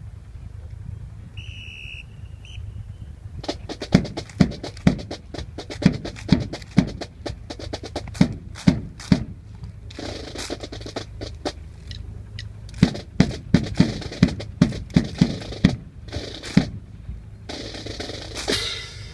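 Sharp clacks and knocks of a rifle drill routine, rifles slapped and struck in unison, in two runs of about two strokes a second.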